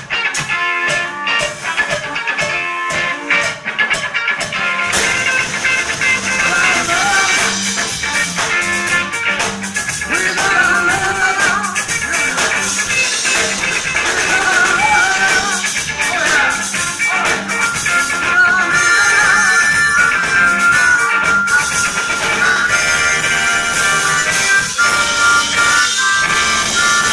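Live band of electric guitar, bass guitar and drums playing a steady rock groove, with a harmonica played into the vocal microphone near the end.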